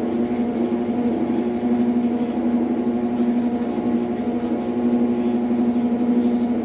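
Electrolux LT12F washing machine running with a steady hum at one low pitch with overtones, and faint short scraping sounds at irregular intervals; the noise is strange, the sign of a fault in the machine.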